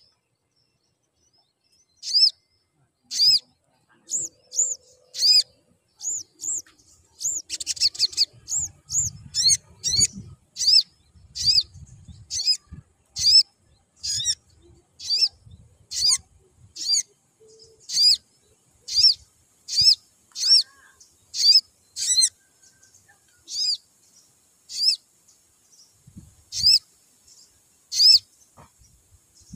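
Male olive-backed sunbird calling: a long series of short, sharp, high chirps, about one or two a second, with a quicker run of notes around eight seconds in.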